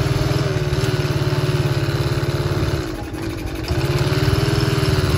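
Small motorcycle engine running while riding. Its note drops briefly about three seconds in as the throttle eases, then picks up again.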